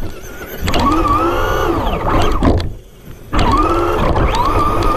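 Traxxas RC truck's electric motor and drivetrain whining, the pitch rising and falling with the throttle as it drives through snow. The whine cuts out briefly at the start and again just past halfway.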